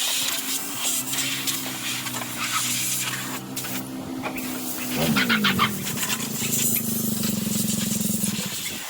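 Old silage truck engine running steadily, its note shifting about five seconds in before it settles into a steady run again.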